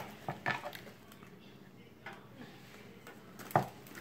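Light knocks and taps of a woven bamboo sticky-rice steaming basket against a wooden tray as the steamed sticky rice is turned out: a few quick taps in the first second, then one sharper knock near the end.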